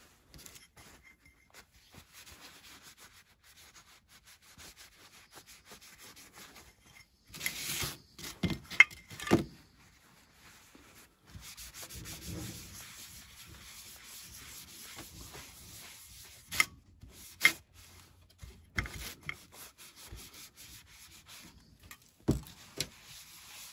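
Cloth rubbing and scrubbing over the painted, laser-etched surface of a ceramic tile, wiping it clean, with a steady scratchy scrubbing through the second half. A few sharp knocks of ceramic tiles set down on the bench, the loudest about nine seconds in.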